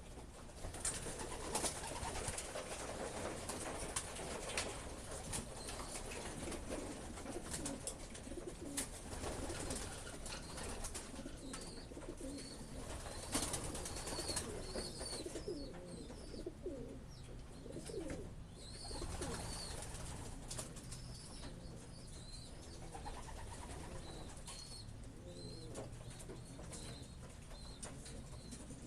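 Young racing pigeons cooing in a loft, with scattered knocks and rustling as birds are caught by hand. Short high chirps come in from about the middle on.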